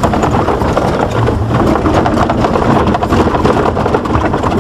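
Inside a Jeep's cabin on a rough, rutted dirt track: engine and tyre noise with a steady stream of knocks and rattles from the body and suspension jolting over the bumps.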